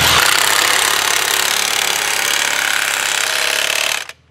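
Cordless impact wrench hammering a motor mount bolt down tight, a loud continuous rattle that stops abruptly about four seconds in.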